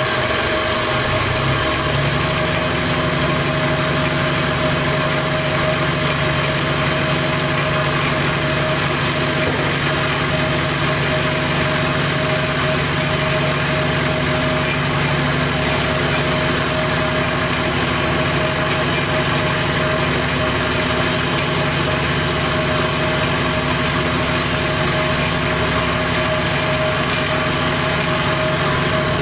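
Jet JWL-1236 variable-speed wood lathe running free with no wood mounted: a steady motor-and-drive hum with a few constant tones, its pitch stepping up slightly a second or two in.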